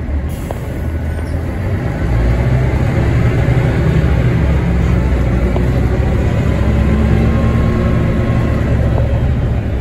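A 1990s Sydney bus under way, heard from inside the passenger cabin: a low, steady engine drone with road noise, getting louder about two seconds in and staying up.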